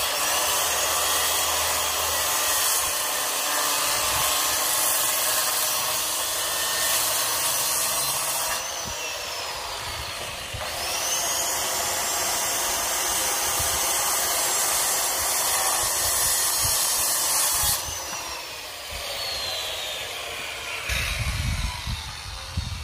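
Circular saw cutting a wooden stair stringer, run twice: each time the motor spins up, cuts for about seven to eight seconds, and winds down with a falling whine after the trigger is released. Low knocks near the end.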